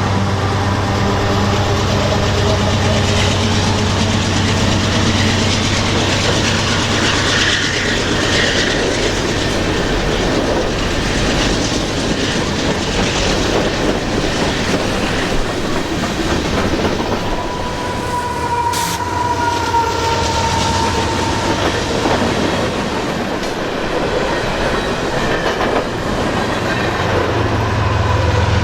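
Freight train cars rolling past with a steady rumble and clickety-clack of wheels over rail joints. A wheel squeal rises briefly past the halfway point.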